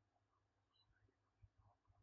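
Near silence: faint room tone with a few scattered, very faint high chirps.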